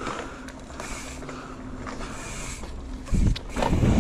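Mountain bike setting off down a dirt downhill trail, rolling and rattling with a few clicks. About three seconds in, wind starts buffeting the microphone loudly as the bike picks up speed.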